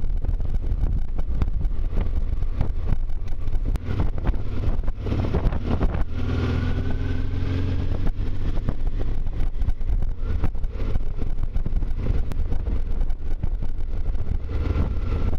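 Honda Transalp motorcycle engine running steadily while riding, with heavy wind buffeting on the microphone; the engine note rises briefly about six seconds in.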